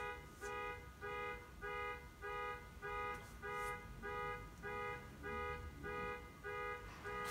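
An electronic beeping, short tones of several pitches at once repeating evenly about twice a second.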